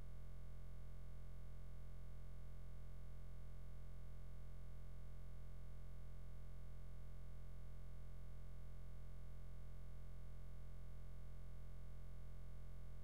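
Steady low electrical hum with a faint buzz of higher overtones, unchanging throughout.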